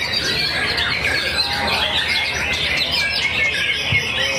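White-rumped shama (murai batu) singing a fast, unbroken stream of varied whistles and chirps, overlapping with the song of other caged songbirds.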